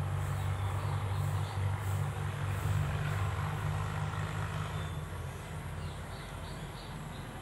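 A low, steady engine hum that fades away about five seconds in, with a few faint high chirps near the end.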